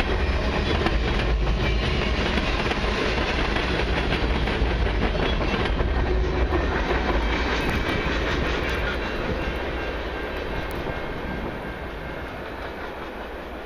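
The tail end of a long freight train passing: steel wheels clattering over the rail and the cars rumbling, then the sound fades steadily over the second half as the train draws away.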